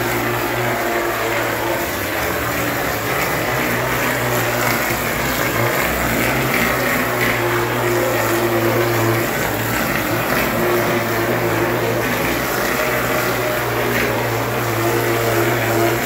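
Plaster spraying machine running: a steady hiss of compressed air and wet plaster blasting from the spray gun onto a wall, over a steady machine hum.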